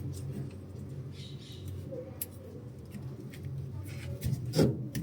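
Scattered clicks and knocks of hand tools and plastic parts as a washing machine's small drain pump is taken out, over a steady low hum.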